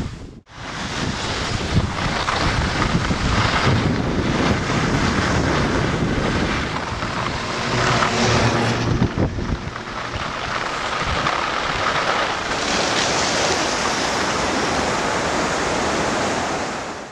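Heavy wind noise buffeting the microphone: a loud, steady rush, with a brief dropout about half a second in. It is typical of a camera carried on a ski descent.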